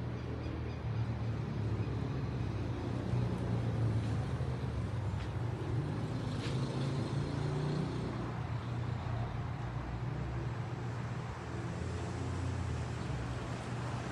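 Road traffic: a steady low rumble of passing cars, a little louder in the first half.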